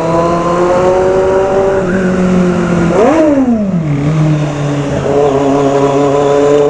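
Kawasaki Z750's inline-four engine running under way. Its pitch eases down, rises and falls quickly about three seconds in, then holds steady at a lower pitch.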